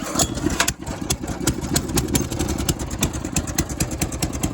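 Snapper rear-engine rider's 9 hp Briggs & Stratton single-cylinder engine starting on choke and running steadily after a brief falter under a second in. It has spark again now that the frayed kill wire that had been arcing to ground is off.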